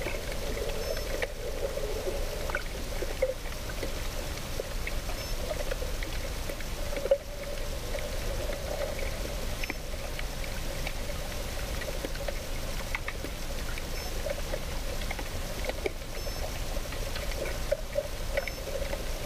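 Water heard through an underwater camera: a steady trickling wash with a steady low hum, scattered faint clicks, and one sharper knock about seven seconds in.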